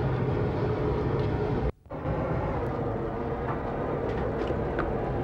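Steady roar of a forge's air blower fanning the coal fire, with a constant hum, cut off briefly just under two seconds in. A few faint metal clinks in the second half.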